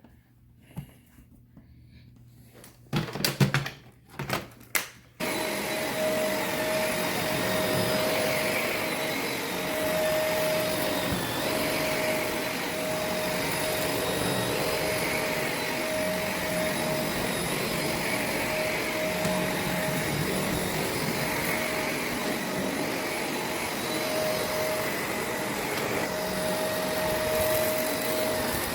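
A few knocks, then about five seconds in a Shark NV501 upright vacuum cleaner switches on and runs steadily, its sound swelling and easing every couple of seconds.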